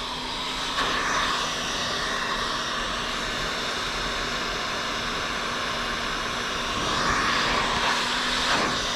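Heat gun blowing steadily: a rush of hot air with a faint low hum under it, swelling a little about a second in and again near the end.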